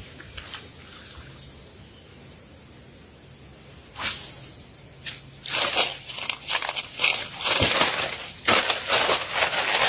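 Water splashing in irregular bursts, starting about four seconds in and getting busier and louder toward the end.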